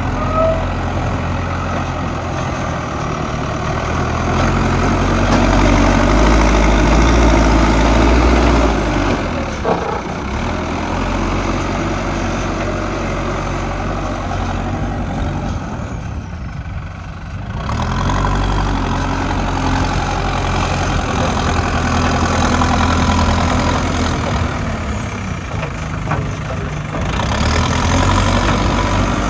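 Diesel engine of a JCB digger loading a tipper truck, running continuously. Its note rises under hydraulic load and drops back toward idle a few times, with the biggest dip about two-thirds of the way through.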